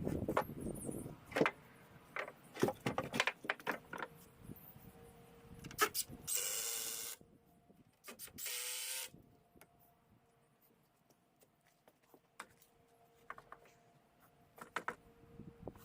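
Wooden boards and posts knocking and clicking as they are handled, then a cordless drill-driver running twice for about a second each, driving screws into the timber.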